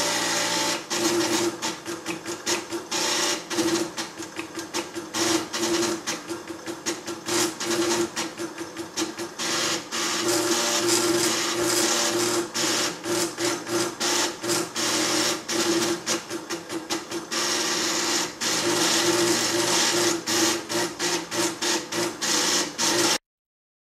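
Calcomp 565 drum plotter drawing, its stepper motors moving pen and drum in rapid runs of steps that make a dense, buzzing chatter. It cuts off suddenly near the end.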